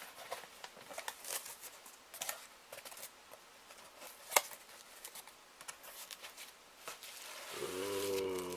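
Cardboard box and plastic packaging being handled during unboxing: light rustling and small clicks, with one sharp tap about four seconds in. A low steady hum starts about a second before the end.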